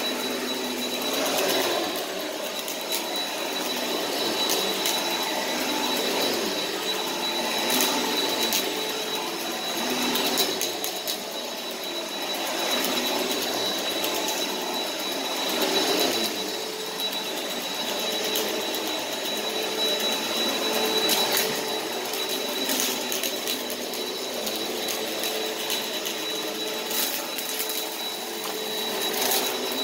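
Upright bagless vacuum cleaner running on carpet: a steady motor hum with a high whine, swelling and easing as it is pushed back and forth. Now and then small bits of debris crunch and crackle as they are sucked up.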